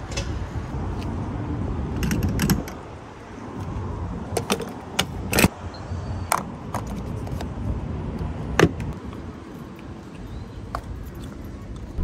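Scattered clicks and knocks from handling a gas station fuel pump and the car, with keys jangling, over a low steady rumble of traffic.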